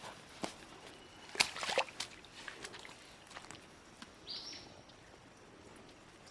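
Footsteps and scrambling over rough ground on a steep slope: irregular crunches and scuffs, the loudest cluster a little over a second in. A brief high chirp about two-thirds of the way through.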